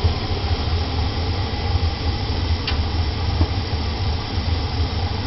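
Old furnace's burners running after lighting: a steady low rumble with a hissing rush over it.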